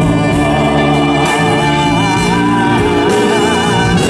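Live band music between sung lines of a pop ballad: held chords with a lead melody line that wavers in pitch.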